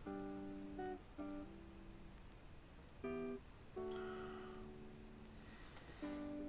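Background music: acoustic guitar chords, each struck and left to ring, a new chord every second or two.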